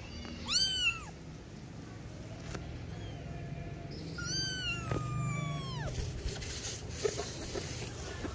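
Persian kitten mewing: a short high-pitched mew about half a second in, then a longer one at about four seconds that falls in pitch at its end.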